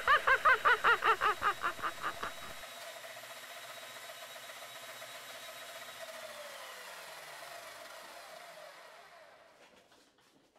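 A cartoon character laughing in quick repeated ha-ha pulses for the first two seconds or so. Then the steady whir of the mechanical television's spinning Nipkow disk and motor, its pitch falling as the disk winds down and fades out near the end.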